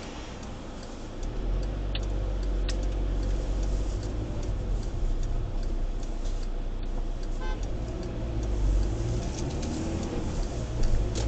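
Engine and road noise inside a moving car's cabin: a steady low rumble that swells about a second in and then holds. A few sharp clicks and a brief run of rapid ticks past the middle sit over it.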